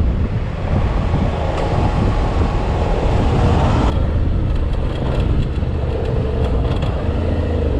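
Motorcycle engine running off-road, with wind and rough-ground noise on the microphone. The hiss drops off suddenly about four seconds in, and a few short knocks follow.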